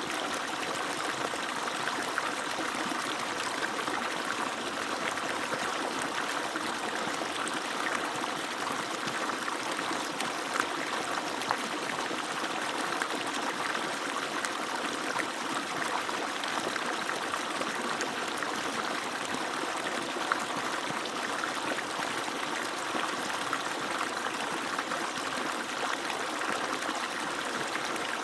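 Water from an agricultural pump's outlet pouring and splashing steadily.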